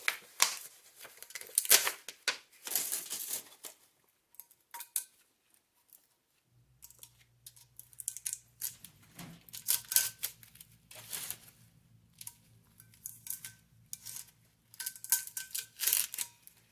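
Sublimation transfer paper being peeled and crinkled off a tumbler: irregular rustling and tearing sounds of paper. A faint low steady hum comes in about six and a half seconds in.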